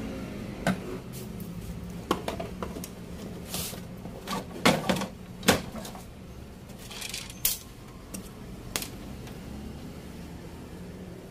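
Plastic back cover of an LED TV being worked loose and lifted off: scattered clicks and knocks of hard plastic with a few short scraping slides, the loudest knocks about halfway through.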